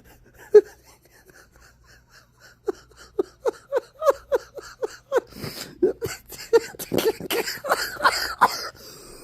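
Small dog wheezing: a single sharp snort about half a second in, then a run of short, quick wheezing breaths, about three a second, that grow louder and turn ragged and noisy in the second half.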